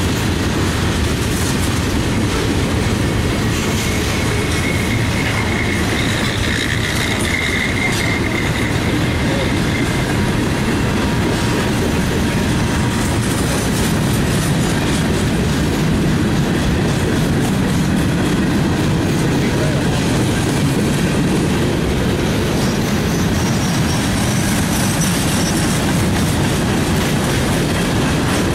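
Freight cars of a mixed freight train rolling past: a steady, loud rumble of steel wheels on rail, with faint high wheel squeals a few seconds in and again near the end.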